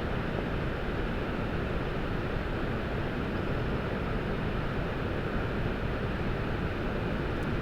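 Sultan waterfall's heavy flow crashing onto the ground below, a steady even roar of falling water. The flow is running strong, which the narrator puts partly down to the previous day's rain.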